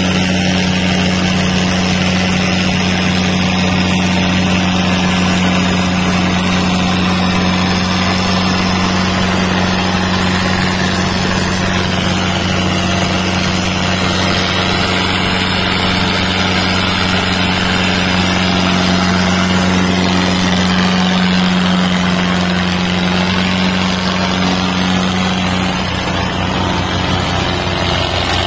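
Diesel tractor engines running steadily under load in a tractor tug-of-war pull, a loud, even drone. The low part of the sound shifts slightly in the last couple of seconds.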